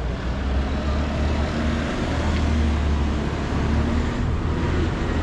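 City street traffic: a motor vehicle's engine making a steady low hum over general road noise.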